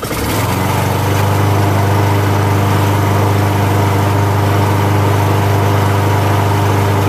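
Small walk-behind lawn mower engine catching on a pull, its pitch rising in the first half second, then running steadily at a constant speed.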